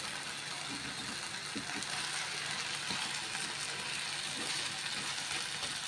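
Blended chili paste sizzling steadily in hot oil in a wok, with salted fish in it, and a few light taps of a metal spatula.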